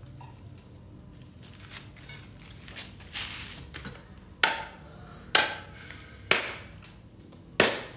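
Crisp snaps and crackles from fresh red chilies being worked by hand, their stems picked off. Small clicks come first, then four sharp loud cracks about a second apart in the second half.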